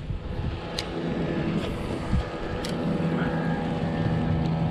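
Boat's electric trolling motor running with a steady hum that comes up about a second in, with two short sharp clicks over it.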